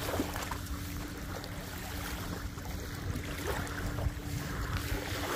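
Wind rumbling on the microphone over gentle lapping of shallow lake water on a pebble shore, with a few faint small splashes. A steady low hum runs underneath.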